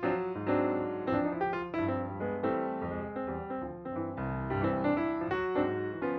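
Background music: piano playing a steady run of notes.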